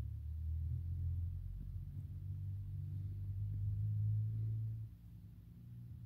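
A steady low rumble that drops away about five seconds in.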